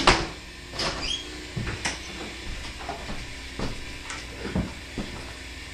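A wooden interior door shutting with a sharp knock. Scattered lighter knocks and clicks follow as the door is opened again and a person comes back in.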